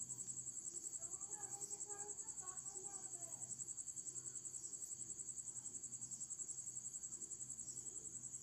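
A high-pitched insect trill, like a cricket's, in rapid, even pulses.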